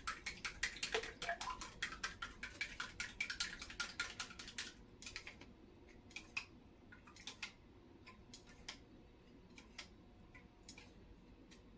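A kitchen utensil clicking rapidly against a bowl, several light clicks a second, which thin to scattered clicks about halfway through.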